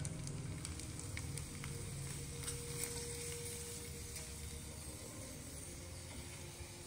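Oil sizzling in a frying pan as thin dried cracker discs fry and puff up, with a few small ticks and pops in the first few seconds; the sizzle slowly fades.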